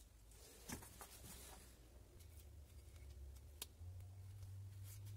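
Near silence with faint handling sounds: a rubber edge-trim strip being worked by hand onto the cut edge of a painted steel panel, giving a few soft clicks and rubs. A low steady hum comes in a little before four seconds and runs on to the end.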